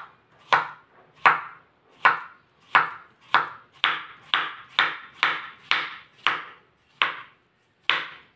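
Knife cutting ripe nendran banana into slices on a wooden cutting board: about fourteen strokes, each a sharp tap of the blade on the board, coming a little faster in the middle and slowing near the end.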